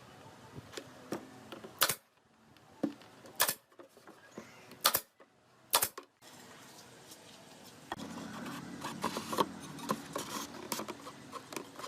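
Four sharp knocks, each more than a second apart, then a run of small clicks and clatter from items being handled in a workshop.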